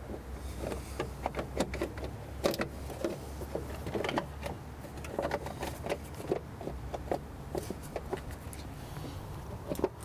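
A plastic engine-bay cover being worked into place by hand: a scatter of irregular clicks, knocks and scrapes of plastic against the parts around it, over a low steady hum.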